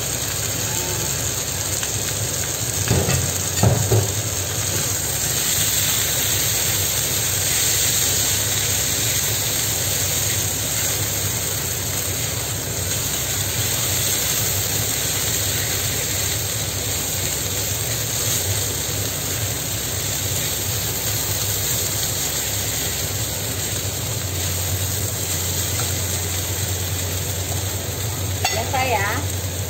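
Shirataki rice frying in a wok with a steady sizzle, while a silicone spatula stirs and scrapes it through the oil. A few sharp knocks about three seconds in.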